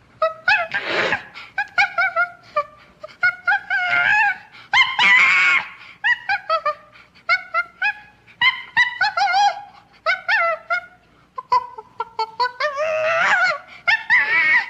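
Ape-man creature vocal effects made from chimpanzee and baboon calls: quick runs of short hooting, chattering calls that bend in pitch. Louder, harsher screams come about a second in, around five seconds, and near the end.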